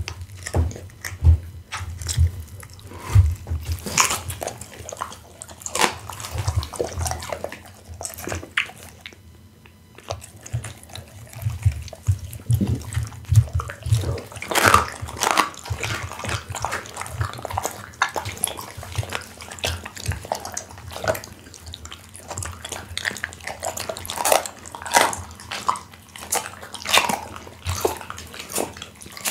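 Pit bull chewing and licking raw meat close to the microphone: irregular wet smacks, lip and tongue clicks, and chomps, briefly quieter about a third of the way in.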